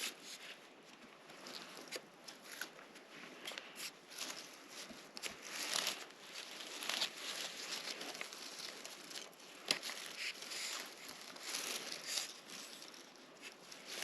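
Footsteps rustling and crunching through dry forest-floor litter, with small twigs crackling at irregular intervals.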